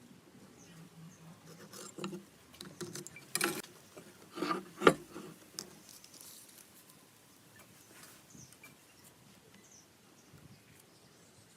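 Scattered light knocks and taps, bunched between about two and six seconds in, the loudest about five seconds in, with a few faint high chirps later.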